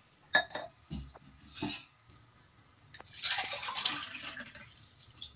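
A glass of water poured into a pressure cooker of kidney beans, splashing for about two seconds, after a few light knocks early on.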